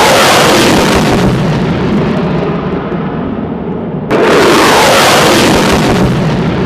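Loud jet noise of an F-15E fighter passing low overhead and climbing away, the sound sweeping down in pitch as it goes. About four seconds in it cuts abruptly to a second pass that falls in pitch the same way.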